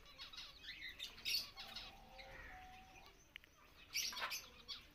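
Indian ringneck parakeets chirping and squawking in short calls while feeding, with louder calls about a second in and again about four seconds in.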